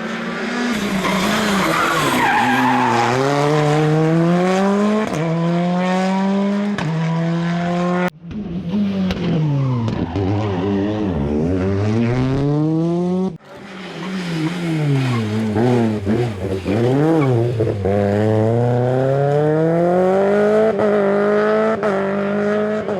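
Rally cars at full attack, engines revving hard, climbing in pitch through the gears and dropping as they brake and shift down, with tyres squealing through the corners. The sound breaks off sharply twice and starts again on another car.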